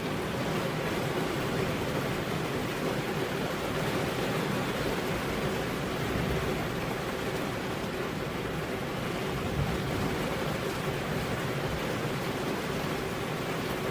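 Steady, even rainfall: a dense hiss of rain with no separate drops standing out and no change in level.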